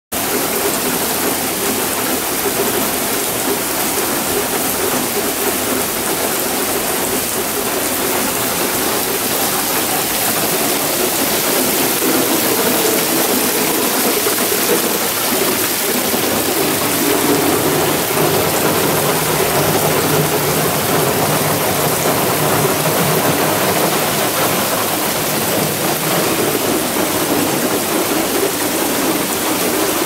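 Typhoon rainwater pouring down a pebble-studded stone wall like a small waterfall and splashing onto wet tiled paving, with the rain falling around it: a steady rushing of water.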